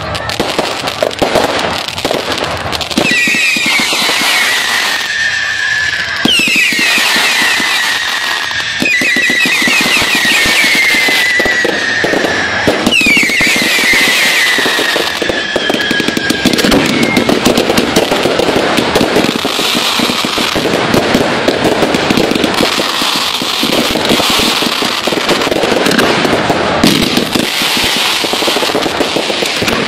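Fireworks going off in a dense, continuous crackle of sharp bangs and pops. Whistling fireworks add four whistles that fall in pitch during the first half.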